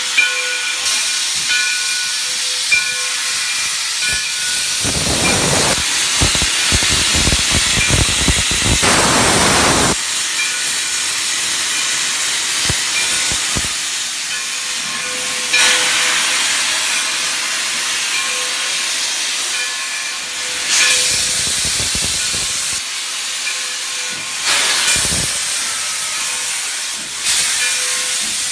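Steam locomotive No. 60 hissing steadily while standing, with a long, much stronger rush of steam about five seconds in. Later come a few separate, slowly spaced blasts of steam as the engine starts to pull away.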